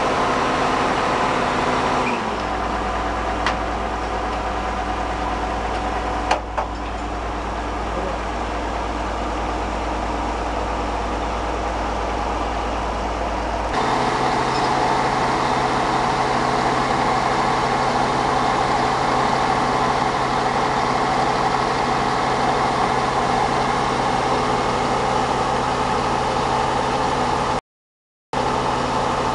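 Engine of a truck-mounted core drilling rig running steadily, its low note shifting abruptly about 2 s and again about 14 s in. A couple of sharp metal knocks come in the first few seconds, and the sound drops out for half a second near the end.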